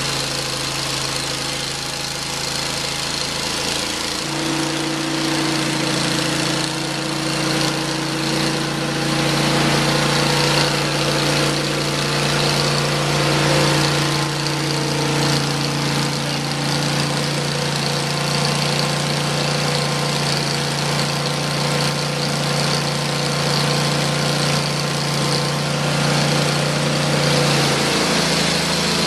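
Engine of a Hud-Son Oscar 36 portable bandsaw mill running steadily. Its pitch steps up slightly about four seconds in and settles back down near the end.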